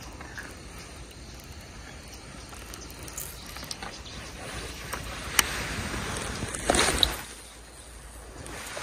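Wind buffeting the microphone, building over a few seconds to a loud gust and dropping away about seven seconds in, with a few sharp clicks from handling the rod and baitcasting reel.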